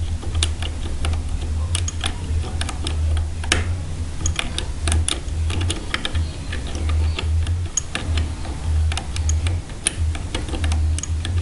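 2-in-1 lever pick working the levers of an ERA five-lever padlock: many irregular small metal clicks and ticks as the levers are lifted and the bolt is picked back. A low hum comes and goes underneath.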